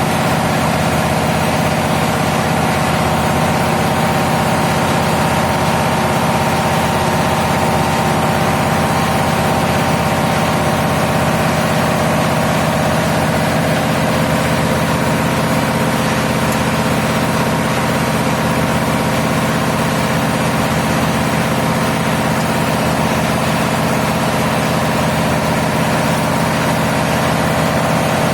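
Steady, unchanging drone of running diesel machinery, an engine-room hum with a constant pitch.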